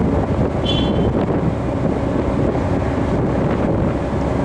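Wind buffeting the microphone on the open deck of a ferry, over the steady low drone of the ship's engines, with a brief high chirp about a second in.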